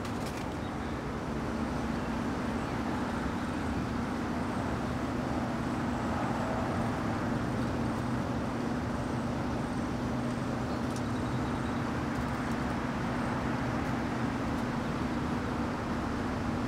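A steady low hum with an even hiss over it, an unbroken outdoor background drone, with faint high chirps repeating through much of it.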